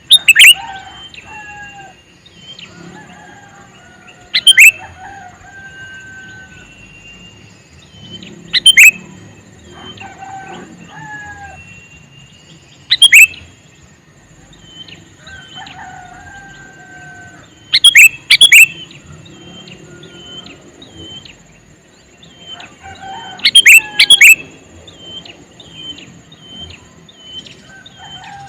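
Male sooty-headed bulbul calling: loud, sharp calls every four to five seconds, some in quick pairs, with softer repeated chirps and short warbled phrases between them.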